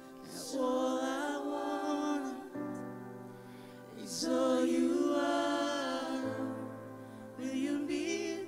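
A man sings a slow worship song into a handheld microphone in three long phrases, over sustained backing chords whose bass note shifts every few seconds.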